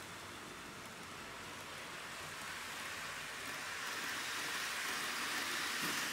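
Kato N-gauge 165 series Panorama Express Alps model train running on the track: a steady rolling hiss of its wheels and motor that grows louder as the train comes toward the front of the layout.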